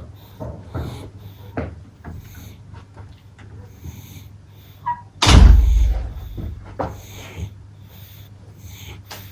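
Sleeping pug snorting and snuffling in short, irregular breaths, with a brief squeak and then a loud low thump about five seconds in.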